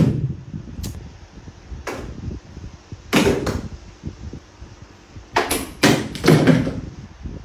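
A series of sharp knocks and thumps at irregular intervals, a few coming in quick pairs, the loudest right at the start.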